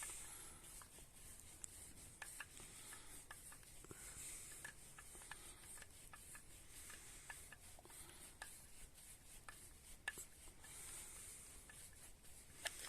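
Faint rubbing and scraping with scattered small sharp clicks, the sound of hands handling and fitting small metal parts.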